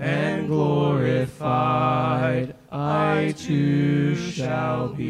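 A male vocal trio singing the closing line of a hymn in harmony with piano, in slow phrases with short breaks between them, then holding a long final chord near the end.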